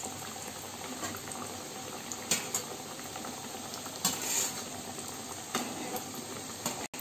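Two folded squares of flour dough deep-frying in hot oil in a deep pan, a steady sizzle and bubbling. A few light clicks and scrapes of a metal slotted spatula and fork against the pan come about two, four and five and a half seconds in.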